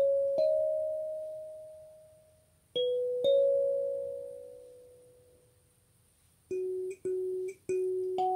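Wooden kalimba plucked with the thumbs, playing a slow melody of single notes that ring on and fade over a couple of seconds. Near the end comes a quicker run of shorter notes.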